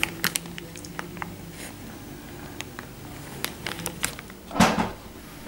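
Light handling noise of a small plastic USB microscope being turned in the hand: scattered soft clicks and taps, with one louder brief noise about four and a half seconds in.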